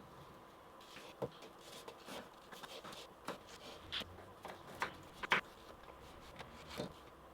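Swiss Army pocket knife cutting an onion: a string of irregular short, light clicks and taps as the blade goes through.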